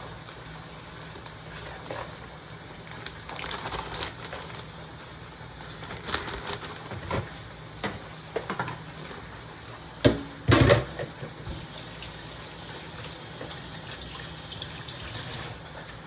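Kitchen handling noises: scattered knocks and clatters of kitchenware, loudest about ten seconds in. A tap then runs into a sink for about four seconds near the end.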